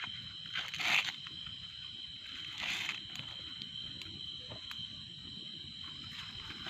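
Steady high-pitched drone of insects in the surrounding jungle, with two short louder rustling noises about one second and three seconds in.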